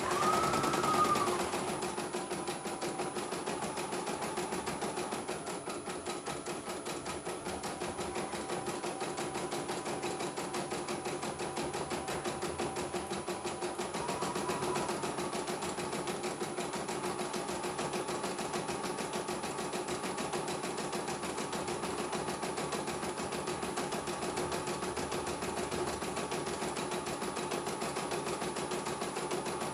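CNY E900 portable computerized embroidery machine stitching: a fast, even needle rhythm over a steady motor hum, with a brief rising-and-falling whine about a second in and a fainter one about halfway through. The machine is running smoothly.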